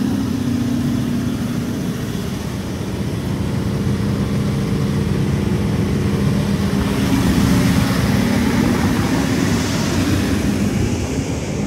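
Caterpillar XQ400 365 kW diesel generator set running steadily at 1,800 RPM, a constant engine drone and hum. About seven seconds in, a rush of hiss swells over the drone for a few seconds.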